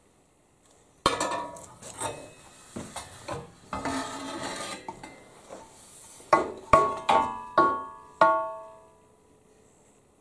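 Steel McLeod tool head knocking and scraping against a welded steel sharpening vise as it is handled and set in place: a sharp clank about a second in, scraping and lighter knocks, then a quick run of loud ringing metal clanks between about six and eight seconds in.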